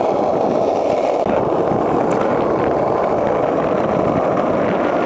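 Skateboard wheels rolling over asphalt: a steady, loud, unbroken rumble.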